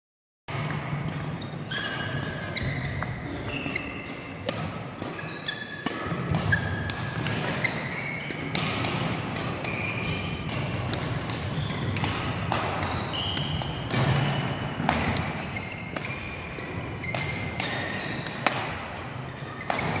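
Badminton training in a large sports hall: athletic shoes squeak repeatedly on the wooden court floor, mixed with sharp racket hits on the shuttlecock and footfalls echoing in the hall.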